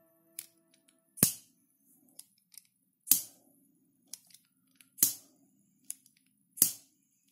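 Turbo lighter's piezo igniter snapping four times, about every two seconds, with a softer click shortly before each one. The transplanted piezo element is sparking and lighting the jet flame.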